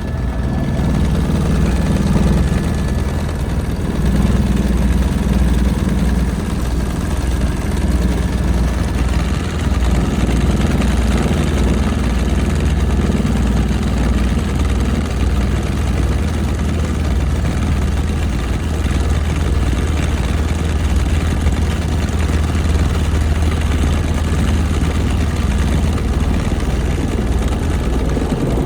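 Helicopter in flight: a loud, steady drone of engine and rotor, deepest at the bottom of the range, with no change in pace.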